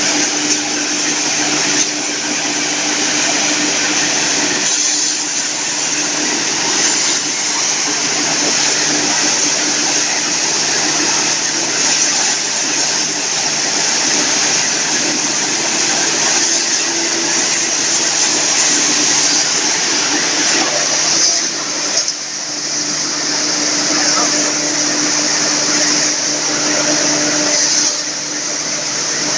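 Wood hammer mill grinding wood into sawdust with its centrifugal blower fan conveying the dust through ducting to the cyclone: a loud, steady rushing machine noise with a hum underneath.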